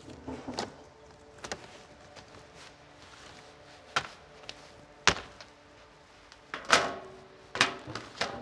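Black perforated plastic nursery trays knocking and clattering as they are handled and stacked: about seven sharp knocks, the loudest about five and about seven seconds in.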